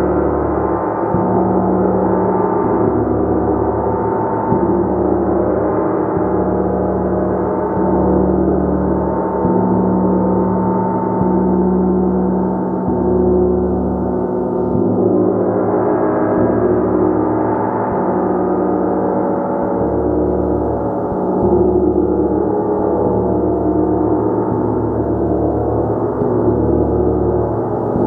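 Gong played continuously, a dense sustained wash of many ringing tones with the low hum pulsing and swelling under repeated soft strikes.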